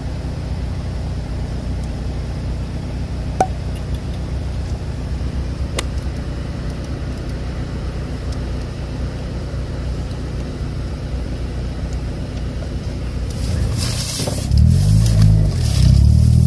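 Car engine running steadily, heard from inside the cabin, with a couple of small clicks. Near the end the engine note climbs and grows louder as the car accelerates, with more road and wind noise.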